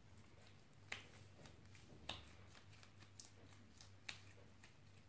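Faint sticky clicks and pops of glue-and-detergent slime being worked by hand. The sharpest come about a second in, at about two seconds and near four seconds, over a low steady hum.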